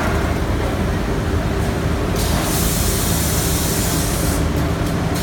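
Linear CNC profile machine running with a steady low hum, joined by a hissing burst from about two seconds in until past four seconds.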